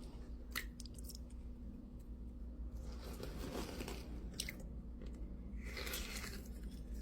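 Thick, glossy gravel slime being pressed with the fingers, giving faint crunches and squishes. A couple of short clicks come in, and a longer rustle near the end.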